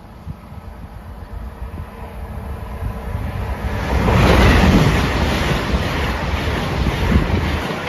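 LNER Class 801 Azuma electric train passing at speed on a 125 mph main line: a rushing wheel and air noise builds over about four seconds and stays loud as the coaches go by.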